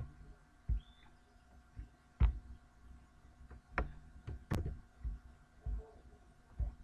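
Scattered soft knocks and clicks, about six spread across several seconds with pauses between them, over a faint steady hum.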